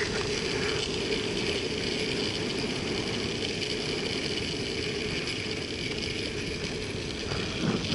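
Longboard wheels rolling steadily on an asphalt path, a continuous grainy low rumble.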